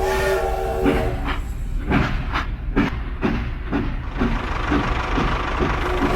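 Train running on its tracks: a steady low rumble with regular clickety-clack, a few clacks a second. A held horn-like tone ends in the first half second.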